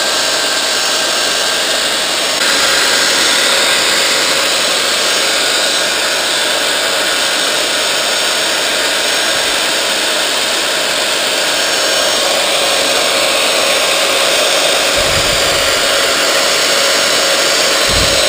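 Small benchtop belt sander running steadily while a thin wooden stick is held against the belt to shape it. The noise gets a little louder about two seconds in.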